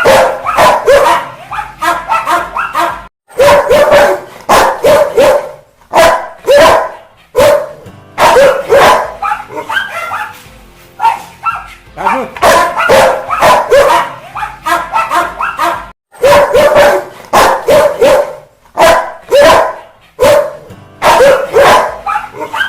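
Rottweiler barking angrily: loud volleys of rapid barks in bursts of a few seconds with short breaks between them, the same sequence recurring about every eight seconds.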